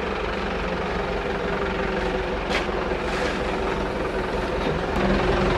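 Forklift engine running steadily, with one sharp click about two and a half seconds in.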